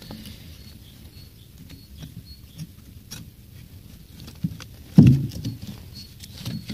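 Thin wooden kindling splints being handled and fitted into a split log: light scattered clicks and rustling, with one heavy low thump about five seconds in.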